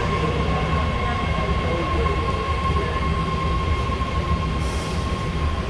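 Interior of a BART subway car at a station stop: a steady low rumble from the car with a constant high-pitched hum over it. A brief hiss comes near the end.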